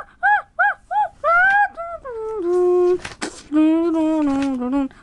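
A person's voice making wordless high-pitched vocal noises: a quick run of five short squeaks, then longer sliding calls that drop lower and end in a held, wavering tone.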